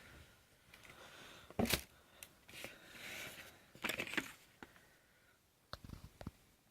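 Unboxing packaging being handled: rustling, with several sharp clicks and knocks. The loudest knock comes about a second and a half in.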